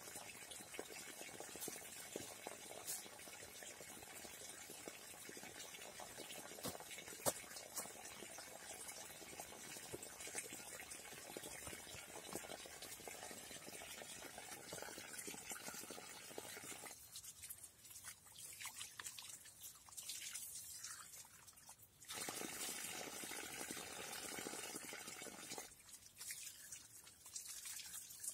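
Water running and splashing from an outdoor standpipe tap onto the ground. It cuts out about two-thirds of the way through, comes back a few seconds later, and drops away again near the end.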